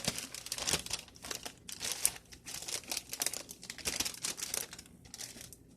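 Crinkling and rustling of a plastic sleeve as a trading card is worked back into it: quick small crackles and clicks that thin out and fade near the end.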